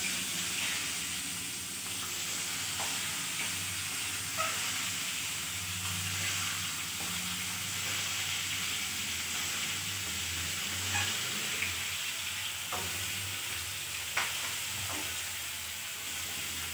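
Whole boiled eggs frying in hot oil in a small kadai, a steady sizzle, with a few short clicks about four times.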